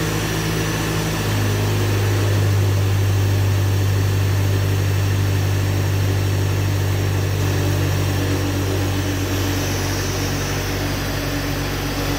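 Self-generating nitrogen servicing cart's compressor running steadily under load, a loud, even machine hum that gets a little louder about a second in.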